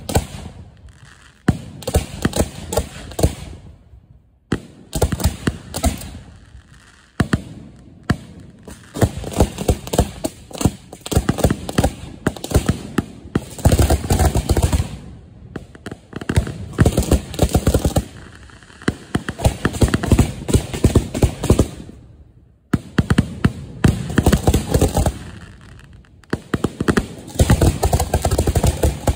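Firework mortars firing in rapid volleys from racks close by, dense runs of sharp launch thumps and bangs in clusters a few seconds long with short pauses between them.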